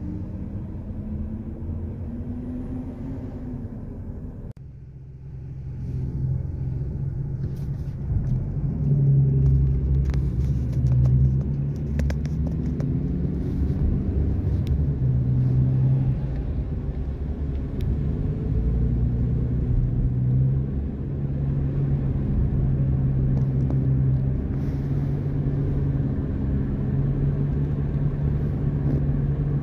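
Low, steady engine and road rumble heard from inside a moving car. It drops out briefly about four and a half seconds in and comes back louder.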